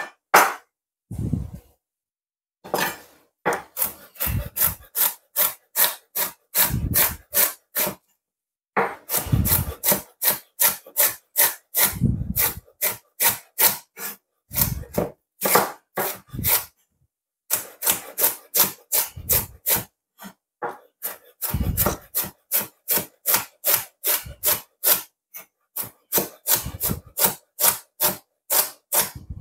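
Chef's knife slicing white cabbage into thin shreds on a bamboo cutting board: a long run of quick, crisp cuts, each one ending in a knock of the blade on the board, a few a second, with a handful of short pauses.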